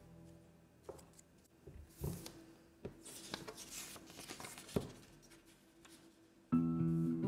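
A4 printer paper being handled and folded by hand: soft rustling and rubbing with a few sharp crinkles and taps. Background music comes back in near the end.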